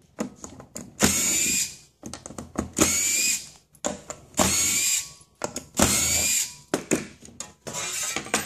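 Cordless drill driving screws out in four short bursts, the motor whine rising slightly in each, with clicks and clatter of loose parts between the bursts.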